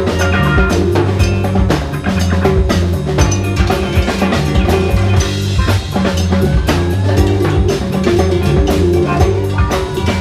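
Live band playing an up-tempo funk-rock song: drum kit keeping a steady driving beat with bass drum and snare, under bass guitar, electric guitar and keyboard.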